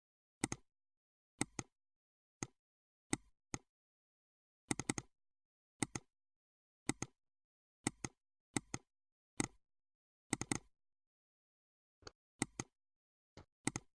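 Computer mouse clicking: about fifteen short clicks at irregular intervals, some in quick pairs, with dead silence between them.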